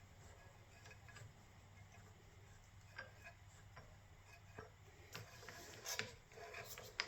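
Faint, scattered clicks and ticks from a hand-crank wire stripper being cranked with a wire fed through it. The clicks come more often in the second half, with one sharper click near the end.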